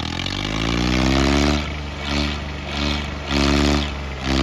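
Tractor diesel engine revving hard while trying to pull a stuck trolley free. The revs climb over the first second and a half, then surge up and drop back again and again, roughly every two-thirds of a second.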